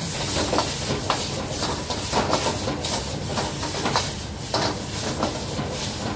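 Meat stir-frying in a wok over a gas wok burner: a steady hiss of the burner and sizzling, with a metal ladle knocking and scraping against the wok many times as the food is stirred and tossed.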